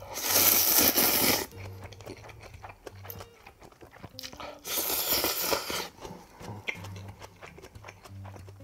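Ramen noodles slurped loudly from a bowl of broth in two long slurps, each about a second and a half, the second about four and a half seconds in. Chewing sounds fall between the slurps, over soft background music.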